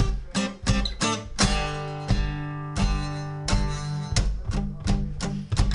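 Acoustic guitar strummed in steady chord strokes, the chords ringing between strokes.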